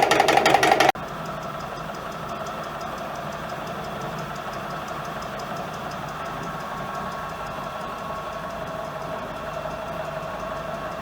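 EPKU-1.7 piston compressor block running. For about the first second it runs loud with a rapid regular knock, the knock from wear in the cylinders that the mechanic puts down, unsure, to the connecting-rod bushings. There is then a sudden cut to the repaired compressor running steadily and evenly at a lower level.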